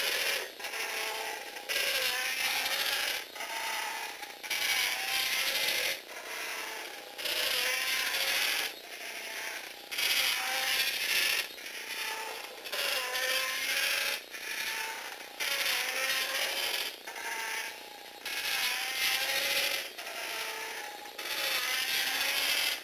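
Small electric motors and plastic Lego Technic gear trains whirring and grinding as a four-legged walking robot steps along. The sound swells and drops in a regular cycle about every 1.3 seconds.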